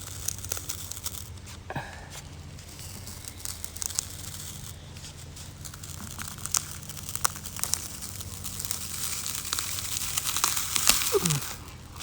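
Cured fiberglass mold being peeled off a boat's non-skid deck: many small crackles and tearing sounds as it releases, growing more intense toward the end, over a steady low hum.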